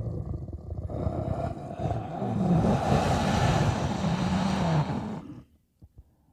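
Kothoga monster growl sound effect, voiced by a man: a rough, low growl that grows louder and harsher about two seconds in and cuts off suddenly a little after five seconds, followed by a couple of faint clicks.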